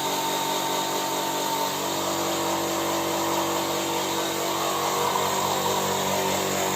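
A motor-driven machine running steadily at a constant pitch, an even mechanical hum with a hiss over it.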